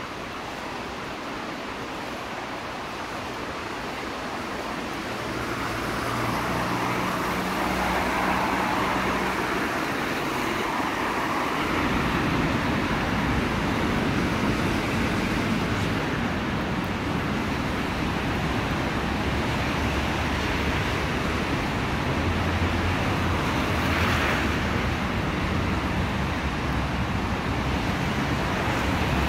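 Road traffic on wet asphalt: a steady hiss of tyres on the wet road with vehicles passing. It grows louder about six seconds in, with a low engine rumble joining from about halfway.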